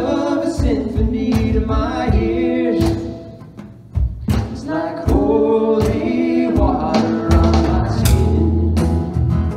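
Live praise band playing a worship song: voices singing over acoustic guitar, electric bass, keyboard and drums. The music thins out and drops in level about three seconds in, comes back a second later, and a strong bass line enters near the end.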